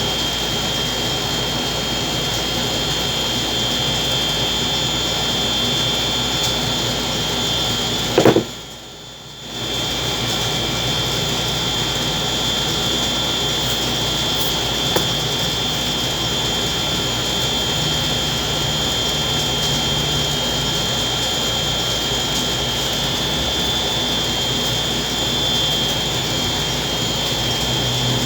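Steady whooshing of air-moving machinery with a constant high whine. After a short click about eight seconds in, it drops away for about a second, then returns.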